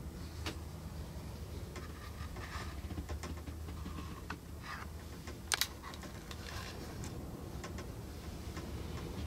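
Scattered small clicks and light rustling of handling, with a sharp double click about five and a half seconds in, over a steady low hum.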